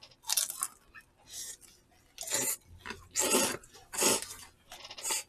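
Crunchy chewing of battered, deep-fried sweet-and-sour pork (tangsuyuk): about six short crisp crunches, roughly one a second.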